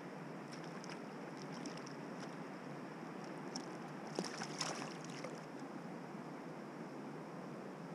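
A hand-held trout being released into shallow stream water: a brief cluster of small splashes and sloshes a little past the middle, over a steady rushing hiss.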